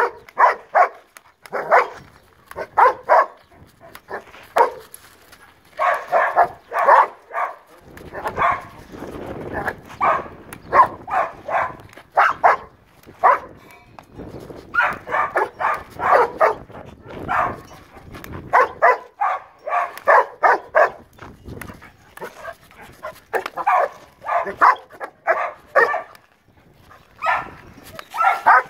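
Harnessed, tethered dog barking hard at a handler's stick in protection-training agitation, in quick volleys of several barks with short pauses between.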